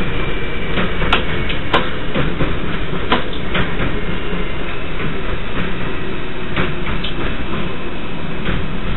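New York City subway train running through an elevated station, heard from the front cab. There is a steady rumble of wheels and running gear, with scattered sharp clicks from the wheels passing over rail joints.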